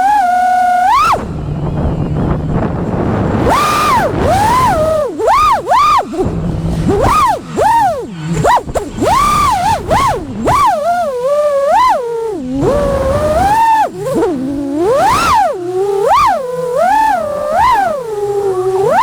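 FPV racing quadcopter's brushless motors and propellers whining, the pitch swooping up and down constantly as the throttle is worked.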